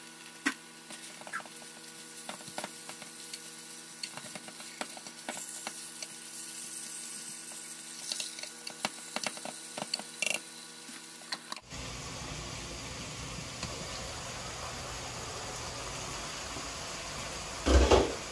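Partly frozen ground beef cooking in a pot on an electric stove. First come scattered clicks and scrapes of a wooden spoon breaking up and stirring the meat over a steady hum. After that, about two-thirds in, a steady sizzling hiss takes over, and a single knock sounds near the end.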